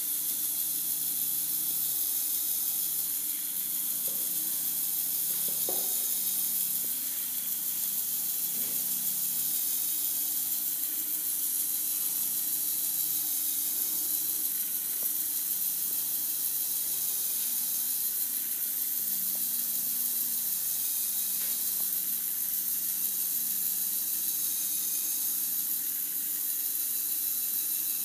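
Steady high-pitched hiss, with a low hum underneath that shifts in pitch every few seconds from the small battery-powered motor and gearing of a LEGO Education Machines and Mechanisms vehicle as it drives along. A few faint clicks come about four to six seconds in.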